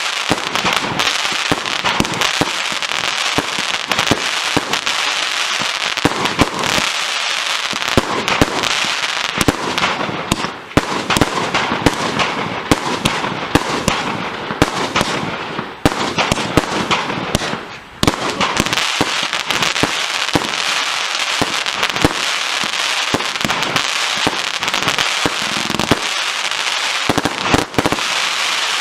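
100-shot 1.2-inch (30 mm) consumer firework cake firing in rapid succession: a dense run of launches and bangs over continuous crackling, with three brief lulls.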